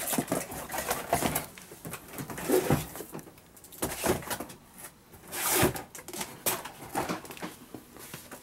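Irregular knocks and clatter from a collapsed aluminium telescopic step ladder being handled and tilted, its folded rungs and plastic end caps knocking together; the loudest knocks come about two and a half and five and a half seconds in.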